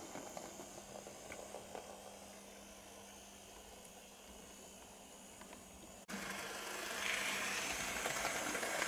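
Hornby OO gauge BR Standard Class 2MT model steam locomotive running on track, its motor and wheels making a steady running noise. It is faint at first, then suddenly louder about six seconds in and louder again as it runs close by.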